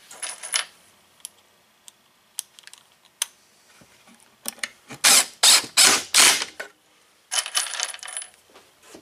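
Loose steel pocket screws clinking as they are picked from a pile on the bench, then a cordless drill driving a 1-inch pocket screw into plywood in four short bursts of the trigger about five seconds in, and the screws clinking again near the end.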